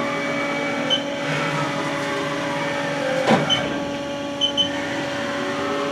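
Haas VF-2SS vertical machining center running with its X axis traversing under power feed: a steady machine whine with slowly shifting servo drive pitch. A few short high beeps come from the machine, and there is a single sharp knock about three seconds in.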